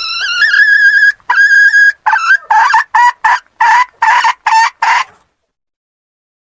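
Female red junglefowl (labuyo hen) cackling loudly: a long rising call and two drawn-out notes, then a quick run of about eight short clucks that stops about five seconds in. This is the hen call used to lure wild roosters into a trap.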